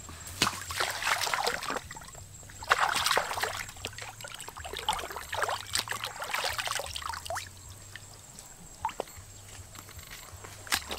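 Stream water sloshing and splashing as fish are rinsed by hand in the shallows, in irregular bursts that die down after about seven seconds.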